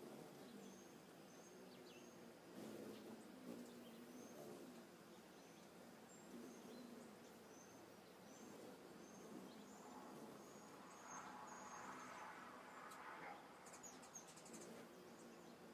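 Faint outdoor ambience: a short high chirp repeated evenly, a little faster than once a second, over a low background murmur.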